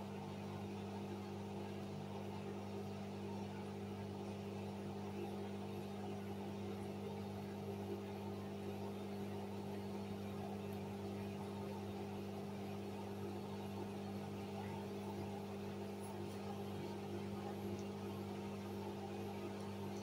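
Hoover front-loading washing machine running, its motor giving a steady, even hum as the drum turns the wet, sudsy laundry.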